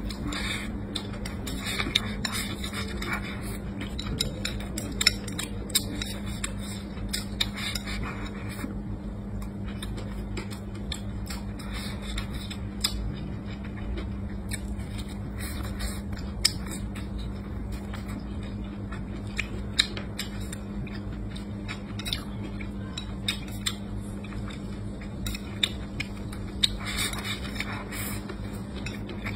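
Close-up eating: chopsticks clicking and scraping against a ceramic bowl of rice, with chewing between the clicks. A steady low hum sits underneath.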